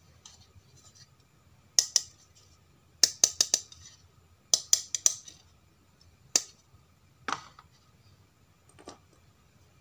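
Hard plastic toy animal figures clicking and knocking against each other and a plastic tub as they are handled: quick runs of sharp taps, then a few single knocks.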